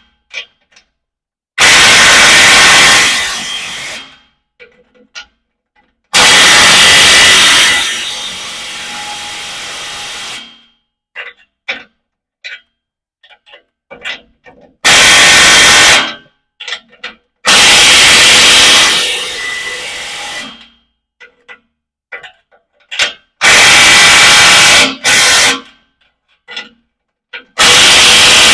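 A power driver or impact gun tightening the nuts on the exhaust clamps that hold a new muffler. It runs in about six loud bursts of one to four seconds each, with small metallic clicks in the pauses.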